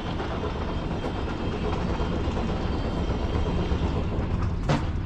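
Sailing yacht's inboard diesel engine running steadily under way, a low rumble that grows slightly louder, with one sharp click near the end.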